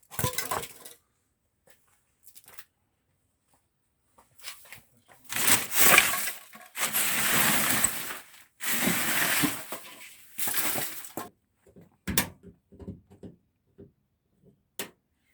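Scraping and clattering as the washing machine is handled and shifted on the floor, in several long noisy stretches, then a sharp knock and a few small clicks.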